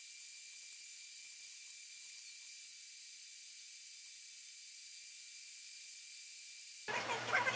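A steady high-pitched hiss with a faint thin whine in it. Near the end it cuts suddenly to a fuller, busier sound.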